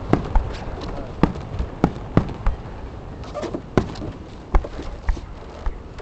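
Fireworks display going off: a run of sharp bangs and pops at irregular intervals, roughly one every half second to second.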